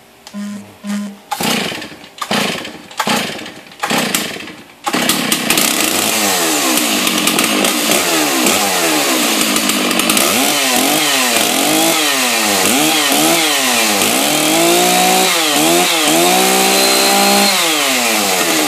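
Stihl MS660 Magnum two-stroke chainsaw being started: a series of short bursts as it is cranked, then it catches about five seconds in and keeps running. It is blipped up and down repeatedly and held at high revs for a couple of seconds near the end before dropping back. This is the first run of the engine after a top-end rebuild for a scored piston and cylinder.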